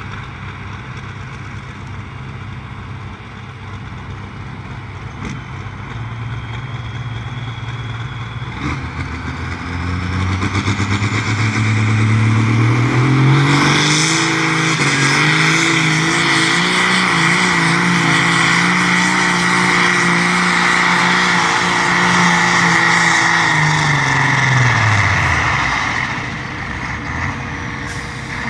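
Diesel pulling tractor's engine, run up to full revs under heavy load as it drags a weight-transfer sled. The revs climb steeply about a third of the way in, alongside a rising high whistle, hold loud and high for about ten seconds, then fall away near the end.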